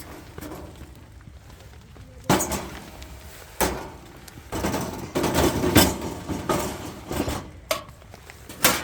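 A series of knocks and clatters, as of things being handled and set down: single knocks about two and three and a half seconds in, a busy run of them in the middle, and one more near the end.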